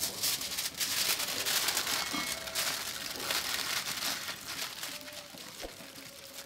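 Aluminium foil crinkling and crackling as hands fold it and press it closed around a fish. It is loudest over the first few seconds and quieter toward the end.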